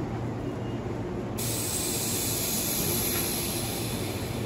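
Hankyu 3300-series electric train standing at the platform, its equipment giving a steady low hum, when compressed air suddenly starts hissing out of its pneumatic system about a second and a half in and keeps going.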